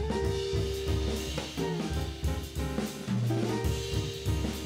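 Instrumental outro music with a steady drum-kit beat, a bass line and held notes.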